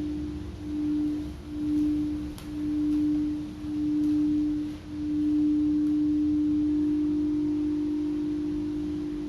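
Singing bowl ringing with one sustained pure tone that pulses in slow waves, the swells growing longer until the tone holds steady about halfway through; a faint second tone joins just above it near the end.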